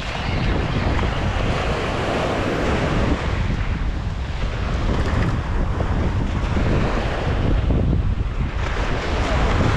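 Wind buffeting the microphone over a steady wash of surf.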